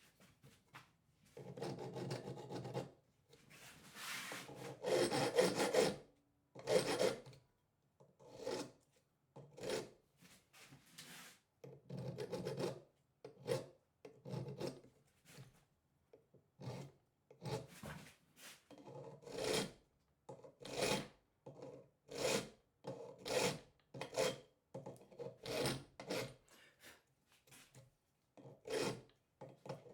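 Hand file or rasp working wood in repeated rubbing strokes, about one a second, a few longer strokes near the start.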